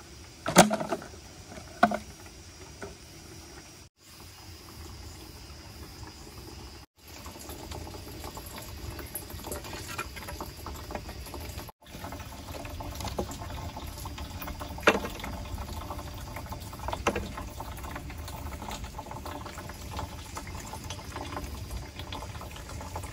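Liquid bubbling and trickling steadily over a low rumble, with a sharp knock about half a second in, another about two seconds in, and a few fainter clicks later. The sound breaks off for an instant three times.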